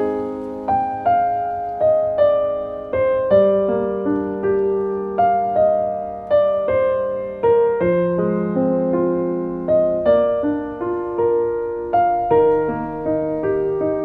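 Background piano music: a slow melody of single struck notes, about two a second, over held low notes.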